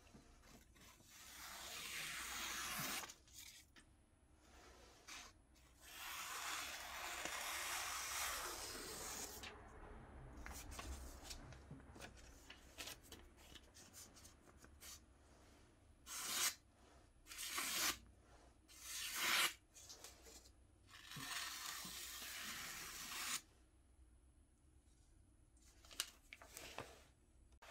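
Freshly sharpened single-bevel sashimi knife slicing through printed paper as a sharpness test: a few long cuts lasting a couple of seconds each, then three short quick ones, then another long cut.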